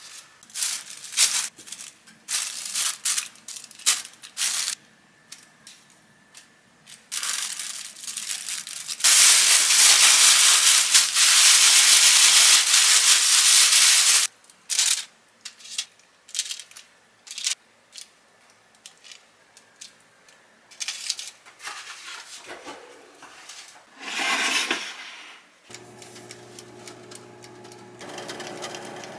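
Kitchen prep sounds: scattered light taps and clicks as tofu cubes are handled, then about five seconds of loud rustling as hands work tofu inside a plastic bag, and a shorter rustle later. Near the end a countertop air-fryer oven starts up and runs with a steady hum.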